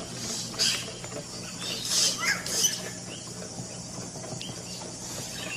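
Yellow-rumped cacique (xexéu) singing: a few harsh, raspy notes, the loudest about two seconds in with a short falling note among them, then fainter single notes.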